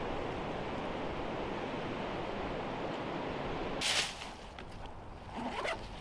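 Strong wind rushing steadily through the forest canopy, cut off about four seconds in by a quick rasp of a backpack zipper being pulled open, followed by softer scraping and rustling of the pack's fabric.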